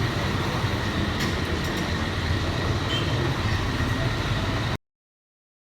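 Heavy construction machinery running steadily, a low engine hum under noisy clatter with a few light clicks, cutting off abruptly to silence near the end.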